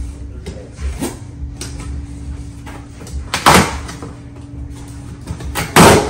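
Large cardboard shipping boxes being handled: cardboard scraping and bumping as a box is tilted and its flaps pulled open. Two louder scrapes come about three and a half seconds in and near the end.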